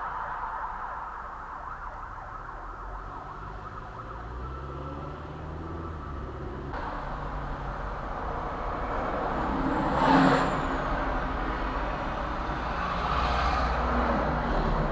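Road traffic passing over a bridge, picked up by a dashcam's built-in microphone: a steady rumble of vehicles, with one louder vehicle going by about ten seconds in. A siren fades away in the first seconds.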